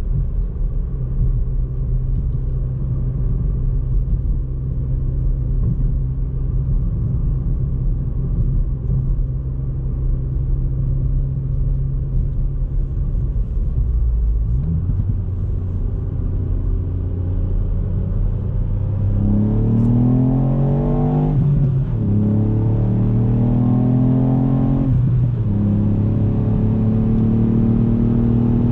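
Ford Fiesta ST Mk8's 1.5-litre turbocharged three-cylinder engine cruising steadily, with a short rev blip about halfway through. In the last third it accelerates hard, pitch climbing and dropping at two upshifts before settling into a steady run.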